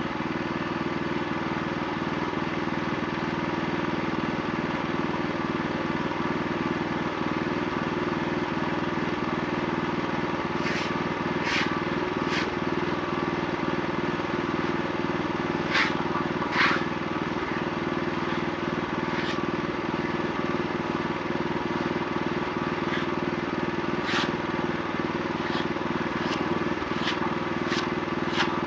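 Wood-Mizer LX25 portable sawmill's engine running steadily, with a dozen or so sharp knocks scattered through the second half.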